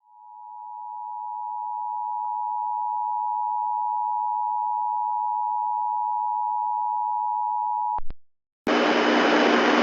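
EAS attention signal: the two-tone alert of 853 Hz and 960 Hz held steady for about eight seconds, then cut off. Two short clicks and a brief gap follow, and near the end a loud steady hiss with a low hum sets in.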